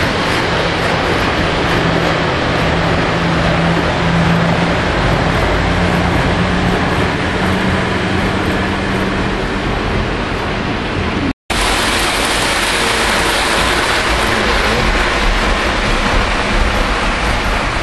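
Lionel O gauge model trains running on the layout's metal track, a steady rolling rumble with a low steady hum through the first half. The sound cuts out for an instant about eleven seconds in.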